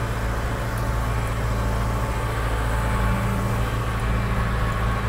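John Deere 6300 tractor's four-cylinder diesel engine running steadily as the tractor drives along, a constant low drone heard from the cab with its door open.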